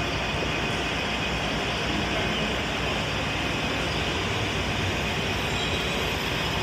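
Steady background din of a bus terminal: an even rush of engine and traffic noise with no distinct events.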